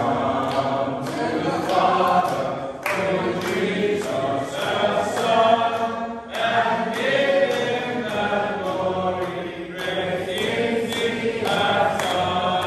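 A group of men singing together in chorus, with hand claps keeping a steady beat.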